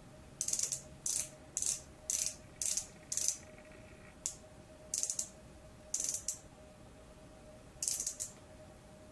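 Short runs of clicking from a sponge-tip concealer pen's dispensing mechanism being worked to push product up to the applicator: six runs about every half second, then a few more scattered ones.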